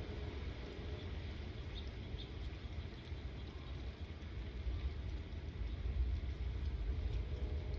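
Thunderstorm ambience: a steady low rumble, swelling a little after about five seconds, with a few faint high bird chirps about two seconds in.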